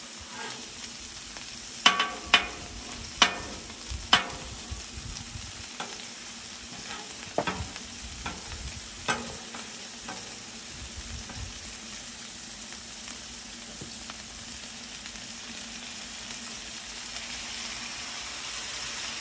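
Beef smash-burger patties and onions sizzling steadily on a hot flat-top griddle. Metal spatulas clank and scrape sharply against the steel cooking surface a handful of times in the first half. The sizzle grows toward the end.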